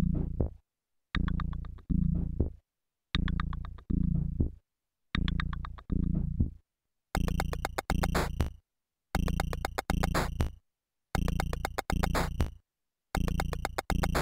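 Electronic music from a Teenage Engineering Pocket Operator Office: a looping synth phrase repeats about every two seconds, each phrase cut off by a brief silence. About halfway through, a crisp high percussion layer joins the loop.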